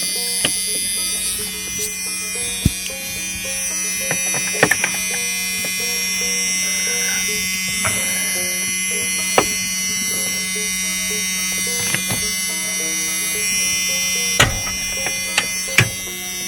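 Scattered sharp clicks and knocks as a stuck hood-release cable and latch are worked with pliers, with a deeper knock near the end. Under them is a steady buzzing hum and faint background music.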